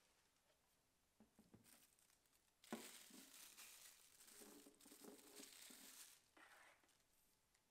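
Thin plastic wrapping crinkling and rustling as it is pulled off two wireless microphones, with a light knock a little under three seconds in. Quiet throughout.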